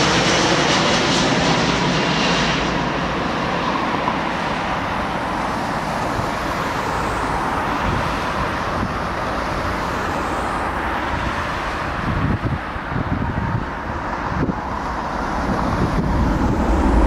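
Jet engines of a landing Lufthansa Airbus A319 airliner, a steady rumble with a high fan whine that fades out about two and a half seconds in.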